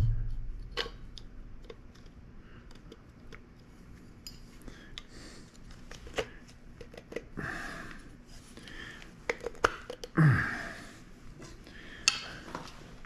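Small metal flashlight parts clinking and clicking against each other as they are handled and fitted together, in irregular taps with a couple of short scraping or rustling moments.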